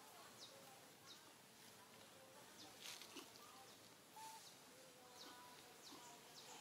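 Near silence: faint outdoor ambience with short, high, falling bird chirps repeating about once a second.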